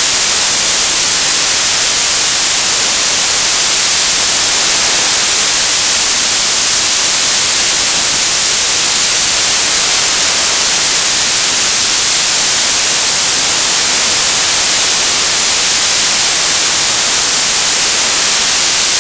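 Television static: a loud, steady hiss of untuned-channel noise, bright and high, unchanging throughout.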